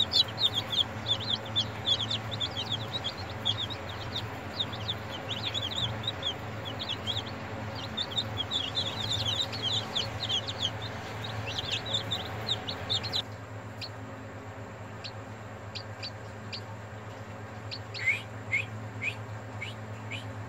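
Newly hatched chicken chicks peeping: a dense stream of short, high cheeps that thins to a few scattered cheeps after about 13 s, then picks up again near the end with falling cheeps. A steady low hum runs underneath.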